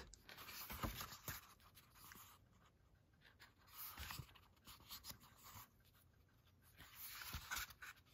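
Faint rustling of paper as the pages of a thick booklet are turned and flicked through by hand, in a few short spells.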